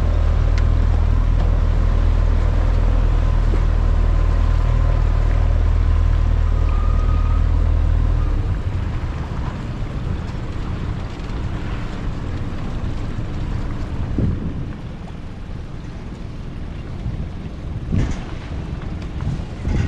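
A sailboat's motor running steadily with a low hum, which stops about eight seconds in. After that there is a steady noise of wind and water, with a couple of brief knocks.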